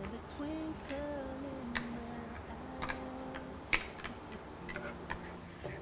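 Metal spoon stirring yogurt in a small ceramic bowl, clinking lightly against the rim and sides in a few scattered clicks, the loudest about two-thirds of the way through.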